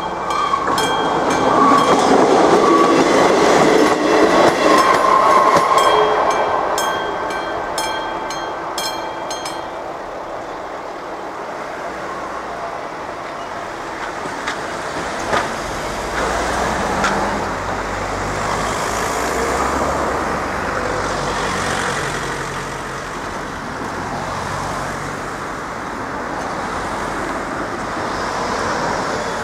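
The classic bell of an AŽD 97 level-crossing warning signal rings at about two to three strikes a second over a train passing loudly for the first several seconds. The bell stops about ten seconds in as the crossing clears. A van and cars then drive over the crossing, their engines rumbling low.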